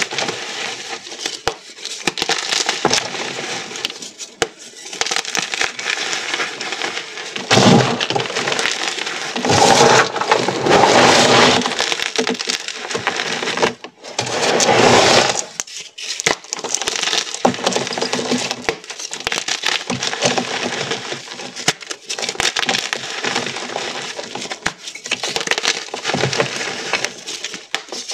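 Dyed gym chalk blocks crumbling and crunching as hands squeeze and rub them into powder, a steady stream of crisp crackles and small snaps. The crunching swells loudest about a third of the way in and again about halfway through.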